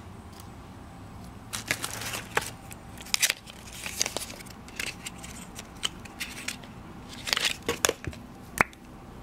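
Tissue paper crinkling and small cardboard product boxes being handled and lifted out of a shipping box: a run of rustles and clicks, with one sharp tap near the end.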